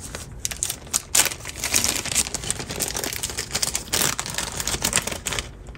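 Irregular crinkling rustle and light clicks from small electronic parts being handled at a workbench, with a few sharper clicks about a second in and again near four seconds.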